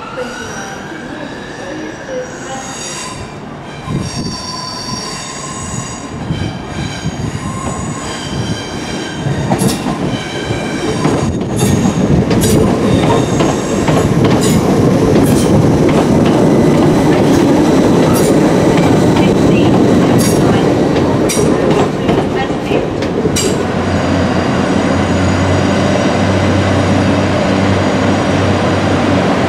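Passenger train approaching with its wheels squealing in high, ringing tones on curved track, then running past close by with a loud rumble and sharp clacks as the wheels cross rail joints. Near the end this gives way to a steady low drone.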